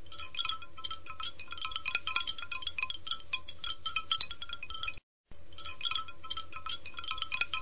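Wind chimes tinkling in a dense, irregular run of light metallic strikes. It cuts out for a moment about five seconds in and then starts again.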